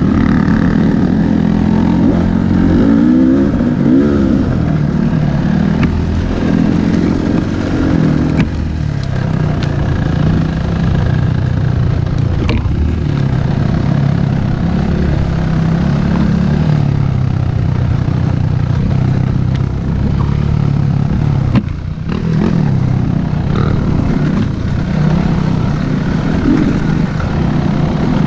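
Dirt bike engine running up close while being ridden, its pitch rising and falling with the throttle, with a few sharp knocks along the way and a short drop in level about 22 seconds in.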